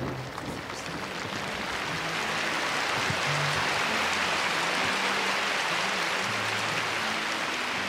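Large arena crowd applauding a figure skater after his performance, swelling over the first couple of seconds and then holding steady.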